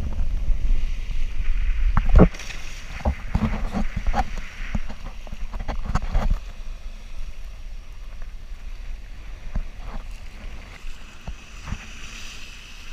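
Wind buffeting an action camera's microphone while water rushes and splashes around a kiteboard, with scattered knocks. The low rumble is heaviest in the first two seconds and dies down after about six seconds into a softer steady rush.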